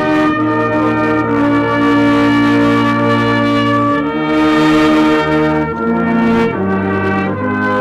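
Brass band playing a slow tune in held chords, the harmony changing every second or two.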